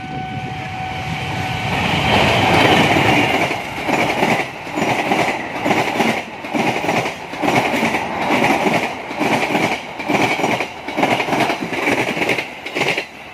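Diesel-hauled passenger train passing close by. The locomotive's noise swells to a peak a couple of seconds in. Then the coaches' wheels clatter over the rail joints in a steady rhythm, a burst about every three-quarters of a second.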